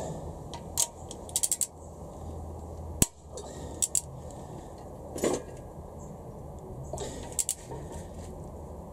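Torque wrench ratcheting in short runs of clicks, with one sharp loud click about three seconds in and a brief creak about five seconds in. An ARP head-stud nut is being tightened to 80 ft-lb on a Honda B18C4 cylinder head.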